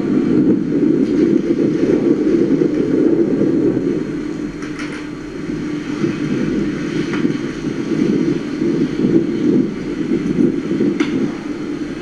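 Steady, rumbling ship-at-sea ambience from a documentary soundtrack: a research vessel's engine and wind on deck during a mooring recovery, heard through a hall's loudspeakers.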